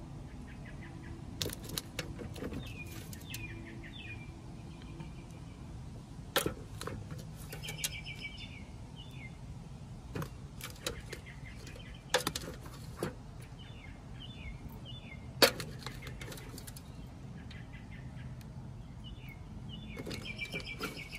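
Small birds chirping in quick repeated phrases, in several bouts. Scattered sharp clicks and knocks from handling a soil trowel and pots, the loudest about fifteen seconds in.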